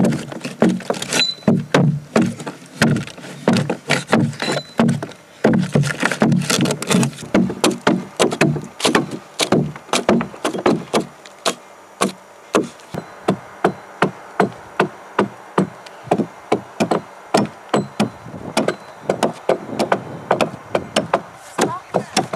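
Hand hollowing of a log dugout canoe: a steady run of sharp blade strokes chipping into the wood, heavier and closer together for the first several seconds, then lighter at about two a second.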